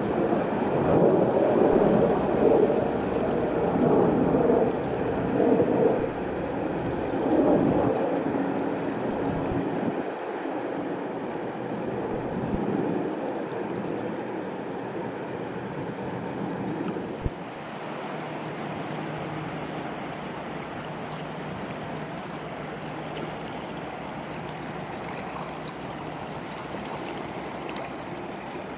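River water lapping and splashing against the bank, choppiest in the first ten seconds, then settling to a steadier wash. A passing Rhine cruise ship's engines hum low and steady underneath in the second half.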